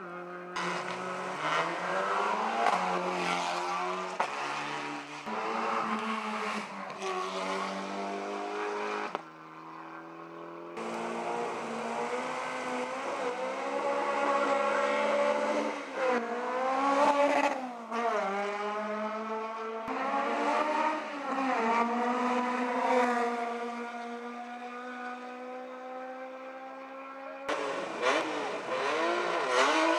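Rally car engines at high revs, the pitch climbing and dropping again and again as the drivers accelerate and shift gear. The sound changes abruptly a few times.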